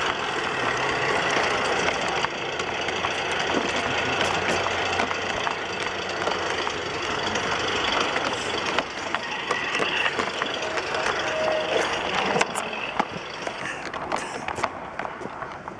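G-scale model VW bus draisine running along garden railway track, its small electric drive and wheels on the rails heard close up as a steady mechanical running noise. About fourteen seconds in it is grabbed by hand: the running noise drops and a few sharp clicks of handling follow.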